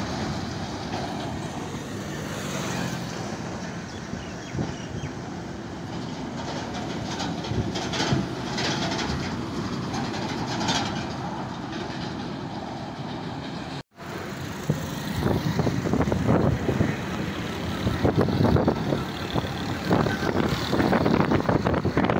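Loaded container trucks driving past on a road: a steady engine and tyre rumble. After a brief dropout about 14 seconds in, a louder, rapid, uneven clattering of a passing vehicle.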